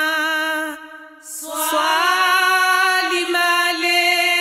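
A single unaccompanied voice singing long held notes, chant-like. The voice breaks off a little under a second in, then takes up a new sustained note that carries on to the end.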